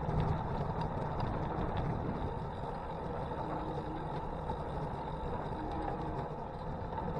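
Steady wind noise on the camera microphone and tyres rolling on tarmac as a bicycle is ridden along a road.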